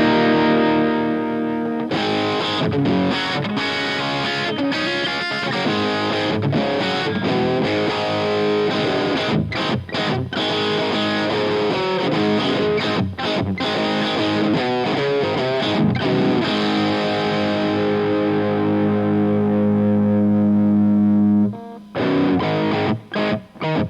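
Distorted electric guitar played through an Omega Series Micro amplifier, taken direct from its speaker output through a Greenback cabinet impulse with added reverb. A held chord rings at the start, then busy riffing. Near the end a long sustained chord cuts off sharply, followed by short choppy stabs.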